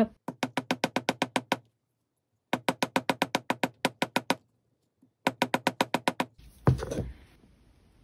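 Rawhide mallet tapping a dead-soft wire S-clasp against a steel bench block, about eight or nine light taps a second in three quick runs, work-hardening the wire to stiffen the clasp. A single duller knock follows near the end.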